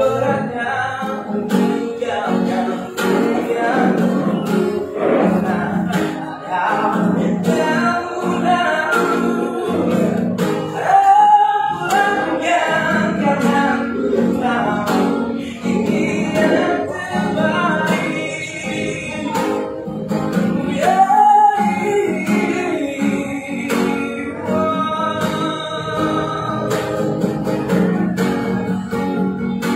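A young man singing a slow song in a strong, melodic voice, accompanying himself by strumming an acoustic guitar.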